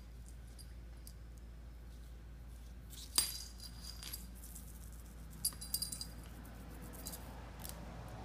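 Small bell on a cat toy jingling in short shakes: once about three seconds in, several times around five and a half to six seconds, and once more near the end.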